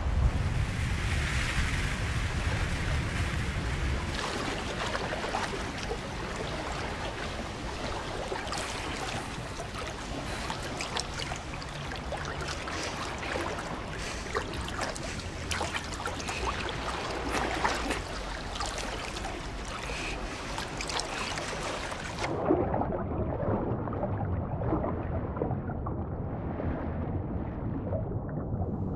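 Sea water surging and splashing, with many short splashes through the first part. About three-quarters of the way through, the sound suddenly turns dull and muffled, as heard from under the water.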